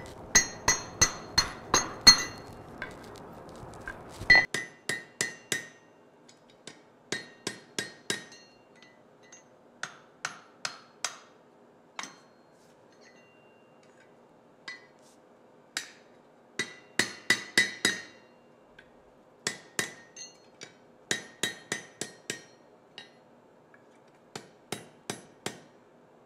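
Blacksmith's hand hammer striking red-hot steel bar stock on an anvil, in quick runs of several ringing blows with short pauses between. A low steady rushing noise lies under the first four seconds and cuts off suddenly.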